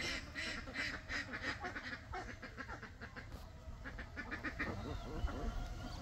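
Domestic ducks quacking quietly: a quick run of quacks over the first two seconds or so, then only scattered fainter sounds.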